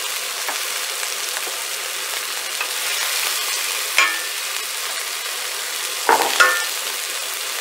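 Chopped carrots, celery, shallots and garlic sizzling steadily in oil in a stainless steel sauté pan while a wooden spatula stirs them. The spatula knocks against the pan with a short ring once about halfway through and twice more a couple of seconds later.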